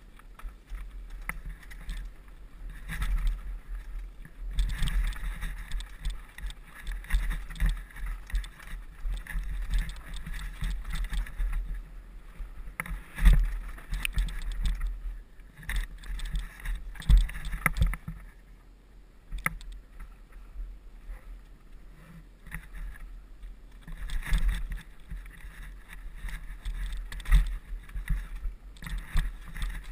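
Hardtail mountain bike descending a rough dirt trail, heard through a helmet-mounted camera: a low, uneven rumble with irregular knocks and rattles as it goes over roots and rocks. The hardest jolts come about 13 and 17 seconds in.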